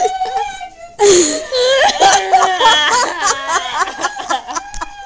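Several people laughing hard and high-pitched, close to the microphone, in rapid gasping bursts that overlap. There is a brief lull about a second in.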